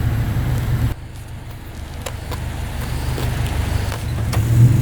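A car's engine drones low and steady with road noise. It drops abruptly about a second in, then gradually builds back up.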